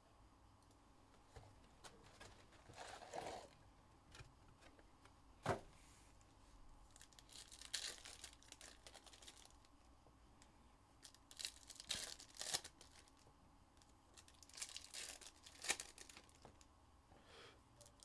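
Trading card pack wrappers being torn open and crinkled by hand, in several short bursts, with one sharp snap about five and a half seconds in.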